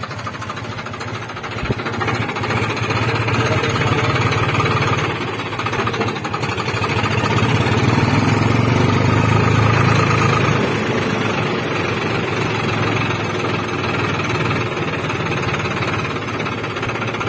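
Farmtrac tractor's diesel engine running under way, exhausting through a tall chrome stack on the bonnet. It grows louder about two seconds in, eases, then climbs again for a few seconds from about seven seconds in before settling back.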